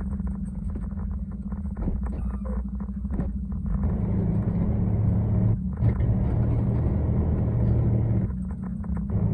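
Heavy log truck's diesel engine running, heard from inside the cab as the truck creeps along, a steady low rumble with a quick fine ticking. From about four to eight seconds in it grows louder and fuller, as under more throttle.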